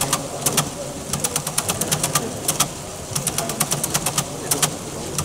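Meccano programmable mechanical sequencer running on its small electric motor, its metal levers, cams and gears clicking in rapid runs with brief pauses between.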